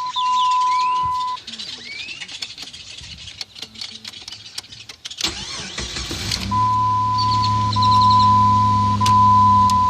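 A 2002 Jeep Grand Cherokee's engine is cranked and starts about five seconds in, then settles into a steady idle. A steady high-pitched tone sounds at the start and again over the running engine, with a few faint clicks in between.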